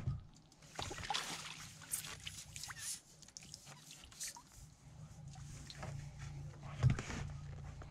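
Irregular rustling, dripping and splashing as a freshly landed roach is handled in the wet landing net, with one louder knock about seven seconds in.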